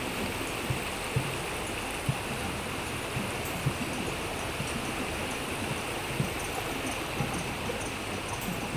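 Steady rushing noise like running water from an ambient soundtrack, with soft low thuds scattered irregularly through it.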